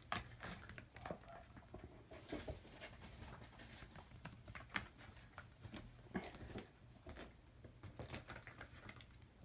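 Faint, scattered patter and taps of kittens' paws scampering across a wooden floor and a mat.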